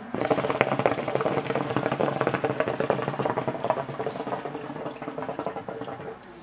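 Water bubbling and gurgling in the base of a Khalil Mamoon Exotica hookah as a long draw is pulled through the hose. It starts suddenly, weakens over the last couple of seconds and stops shortly before the end.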